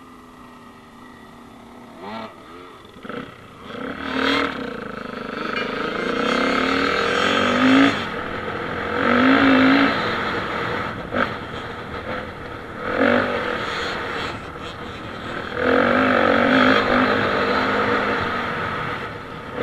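Dirt bike engine ticking over at first, then pulling away about four seconds in. It accelerates along a dirt track in repeated surges, revving up and easing off several times, with a few sharp knocks.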